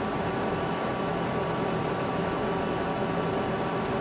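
Steady hum and hiss of a cooling fan running, with a few faint steady tones in it, from the Xbox 360 power supply driving the soldering iron.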